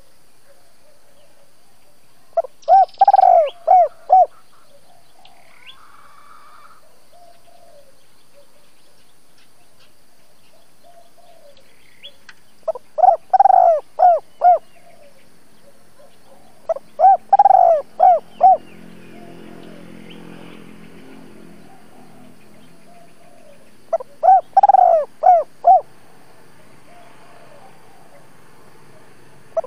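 Spotted dove cooing its double-voiced call (giọng đôi): four phrases, each a run of several quick coos. It is a caged decoy bird calling to lure wild doves.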